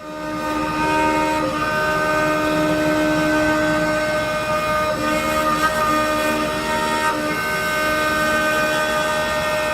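Lathe running, a continuous machine noise with several steady whining tones over a low rumble; some of the tones drop out and come back every second or two.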